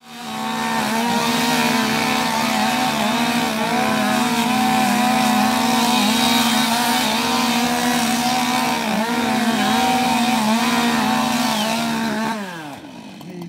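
Two-stroke chainsaw at full throttle cutting through logs, its high steady pitch dipping slightly now and then under load. Near the end the revs fall away as the saw comes off the throttle.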